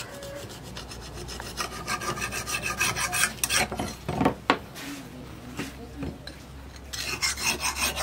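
Hand file scraping back and forth along the edge of a forged steel knife blade, sharpening it: a quick run of rasping strokes, a pause, then another run near the end.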